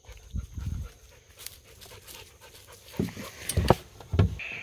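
Dog panting close by, with a few sharp knocks, the loudest about three and a half and four seconds in.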